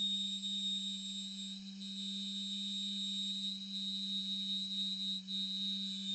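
A person holding a steady, unwavering whistle-like tone: a high note sustained over a low one, with a brief dip about five seconds in.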